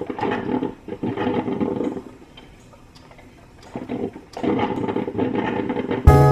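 Drip coffee maker gurgling and hissing as it brews into a thermal carafe, in irregular spurts with a quieter lull in the middle. Background music with a beat comes in near the end.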